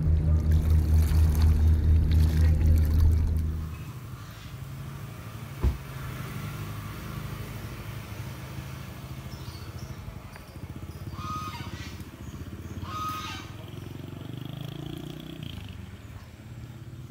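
Boat engine throbbing with an even, rapid pulse, cutting off about four seconds in. Then much quieter outdoor background with a single sharp knock and two short high tones later on.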